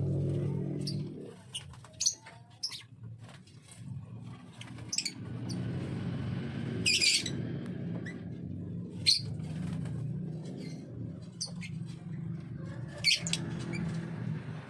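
Lovebird giving short, sharp high-pitched chirps every second or two, with one longer call about halfway through, over a steady low hum.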